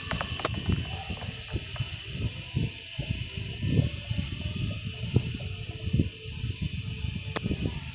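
Irregular light knocks and clicks of small objects being handled, over a steady hiss.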